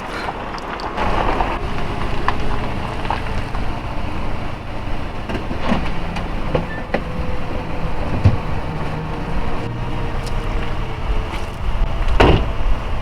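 Car running, heard from inside the cabin: a steady low rumble of engine and road noise, with a few small knocks and a louder thump near the end.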